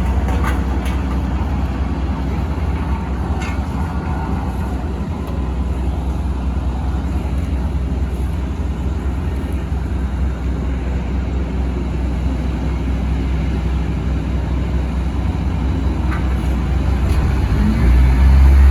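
Road roller's engine running steadily while it compacts freshly laid asphalt, a low hum that grows louder near the end.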